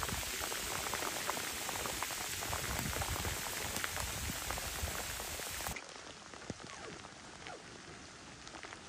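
Steady rain falling, a dense patter of drops. About six seconds in it drops abruptly to a softer patter.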